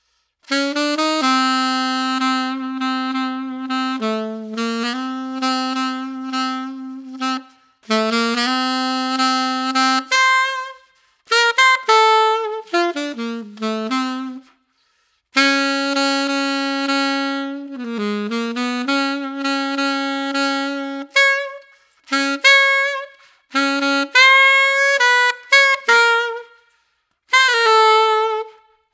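Solo, unaccompanied alto saxophone played on a JodyJazz HR* Custom Dark hard-rubber mouthpiece with a 7 tip opening and a 2.5-strength reed, playing a jazz-standard melody in phrases of long held notes and quicker runs with short breaths between. The tone is warm and dark with a lot of core.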